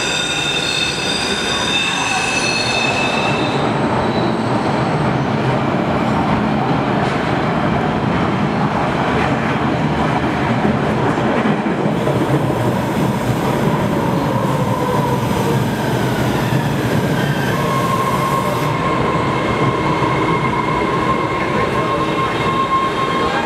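MBTA Red Line subway train entering the station on a sharp curve: its wheels squeal in several high tones for the first few seconds. Then a loud, steady rumble as it runs along the platform, with a steady whine coming in about three-quarters of the way through as it slows to a stop.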